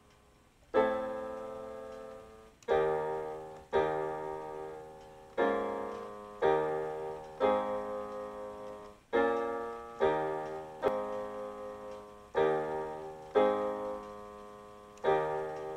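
Electronic keyboard playing an instrumental passage: full chords struck roughly once a second, each left to ring and fade before the next, starting just under a second in.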